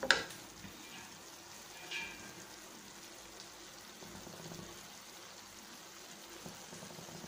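Faint sizzling of hot oil in a pan of thick garlic-tomato pickle, left to settle after the heat is switched off. A wooden spatula knocks against the pan once at the start and touches it again briefly about two seconds in.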